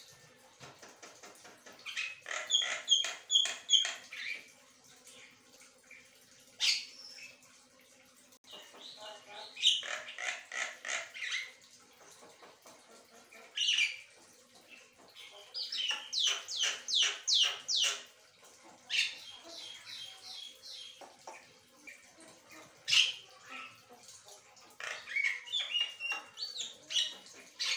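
Javan myna singing in bouts of quick repeated notes, about four or five a second, with single sharp calls in the pauses between bouts.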